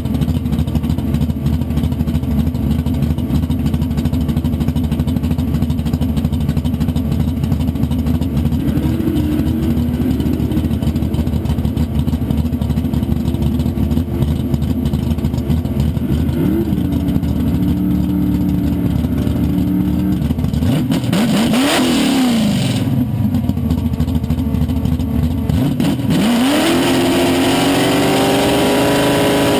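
Fox-body Mustang's 347 stroker small-block V8 with a big cam, idling, then blipped up a few times, once sharply up and straight back down. Near the end the revs climb and are held high and steady.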